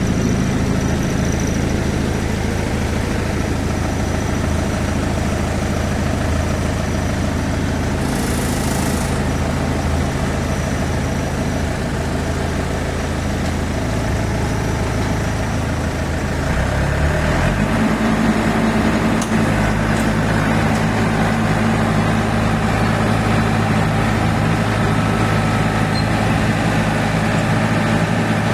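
Yanmar AW70V combine harvester's engine running steadily. A short hiss comes about eight seconds in, and about seventeen seconds in the engine briefly dips, then revs up and holds at a higher, slightly louder pitch.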